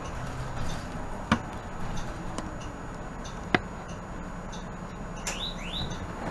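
Steady low rumble of a 2018 Nova Bus LFS diesel bus, heard inside the cabin. Two sharp clicks come about a second and a half and three and a half seconds in, and two short rising squeaks near the end.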